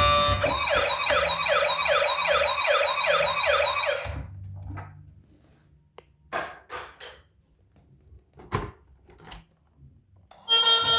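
A toy emergency vehicle's electronic siren, a fast rising-and-falling yelp repeating about three to four times a second, which stops after about four seconds. It is followed by a few faint clicks and taps.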